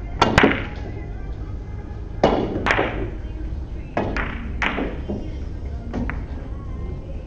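A Russian pyramid billiards shot: the cue strikes the cue ball about a quarter second in, followed by a run of sharp clacks as the white balls knock into each other, each one ringing briefly in the hall. The clacks come in pairs about two seconds apart, with a last single one near the end.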